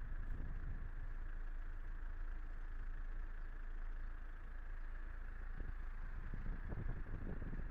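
Car driving at low speed: a steady low engine and road rumble, with a few low thumps toward the end.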